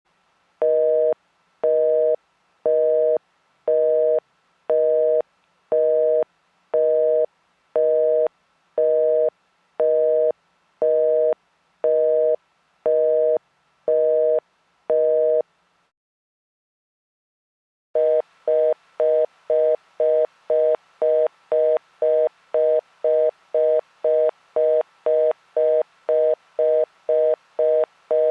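North American telephone busy signal: a two-tone beep sounding about once a second, half on and half off, about fifteen times, meaning the called line is engaged. After a two-second pause the same tone comes back pulsing about twice a second. That is the fast busy, or reorder tone, which means the call cannot be completed.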